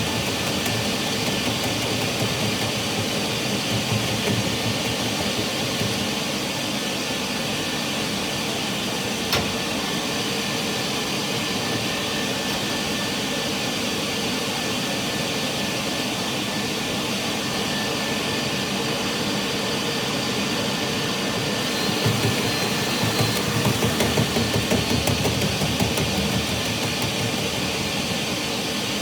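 Dryer-vent cleaning machine's motor running steadily, a rushing whir with a thin steady whine. It turns louder and rougher for a few seconds about three-quarters of the way through, and a single sharp click sounds about nine seconds in.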